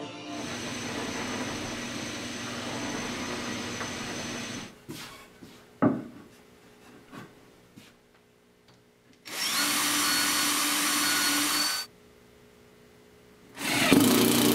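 Cordless drill running in steady bursts on pine, one of about two and a half seconds beginning about nine seconds in and another starting near the end. Before them, about four seconds of steady noise and then small clicks and a sharp knock.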